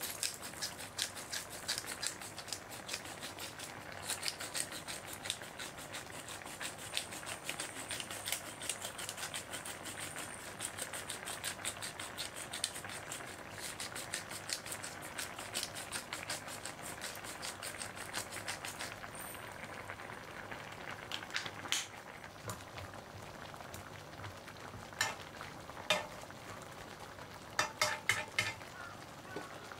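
Chicken and vegetable curry simmering in a frying pan, a dense crackle of small bubbles popping and sizzling. The crackle thins out about two-thirds of the way through, and a few sharper clicks come near the end.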